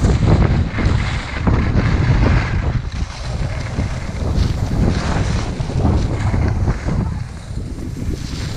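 Wind buffeting the microphone of a skier moving downhill, a loud low rumble, with the hiss and scrape of skis sliding and turning on snow.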